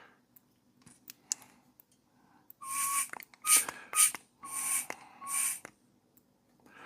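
Hand vacuum pump worked in about five quick strokes, each a short hiss of air with a brief whistle, drawing vacuum on a chainsaw's sealed crankcase for a leak test. A few faint clicks come before the strokes.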